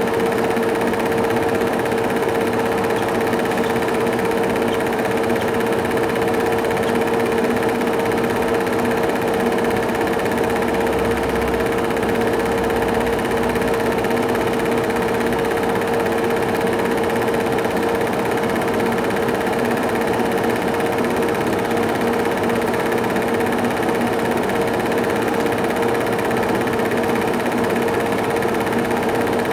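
Cine film projector running: a steady mechanical whirr with a constant hum.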